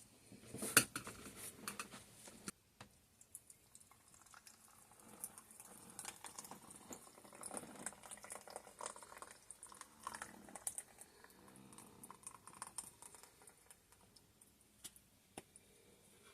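Faint, scattered handling noises: small clicks, taps and soft scraping or rustling, with one sharper click about a second in.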